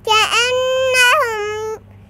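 A young girl's high voice chanting a long, drawn-out phrase of Quran recitation, the final vowel held for over a second with small turns in pitch, stopping shortly before the end.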